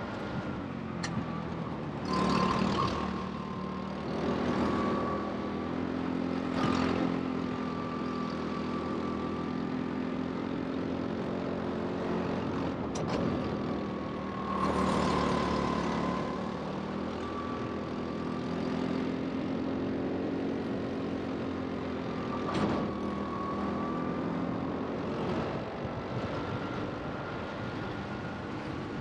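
Rental go-kart running at race pace, heard onboard. Its pitch dips and climbs again every few seconds as it brakes and accelerates through the corners, with a brief louder rush now and then.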